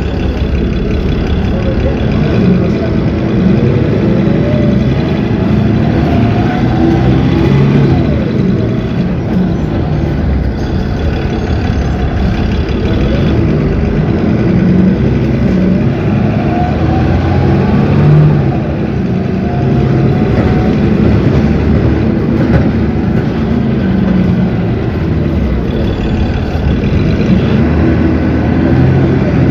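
Cummins ISB 6.7 diesel engine of an Agrale MT17 city bus running under way, with a whine that rises twice as the bus gathers speed.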